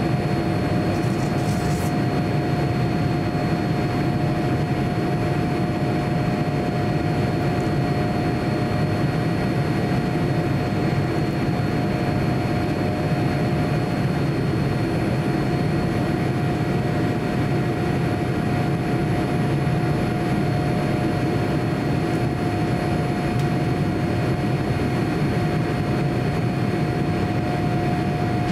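Cabin noise of a Boeing 787-9 airliner with GEnx-1B engines in the climb after takeoff: a steady, even rush of engine and airflow noise with a constant mid-pitched hum and a faint high whine.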